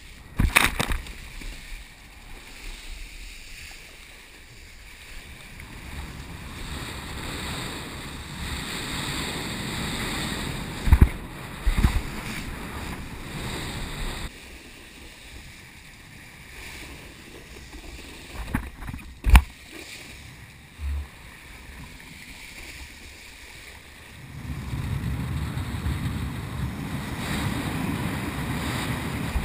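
Water rushing and spraying under a wakeboard towed by a cable, heard from a camera on the rider. The rush swells and fades, louder in the middle and again near the end, with a few sharp knocks.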